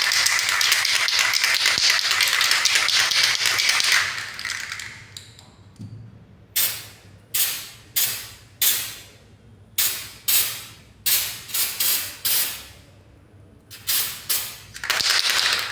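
Aerosol can of penetrant-test developer spraying: a steady hiss for about four seconds, then a string of short puffs, then another spray starting near the end.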